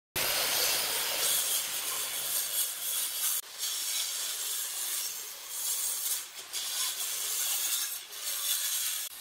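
Maktec circular saw cutting through wooden pallet deck boards: a steady hissing cut that dips briefly a few times as the blade passes from board to board.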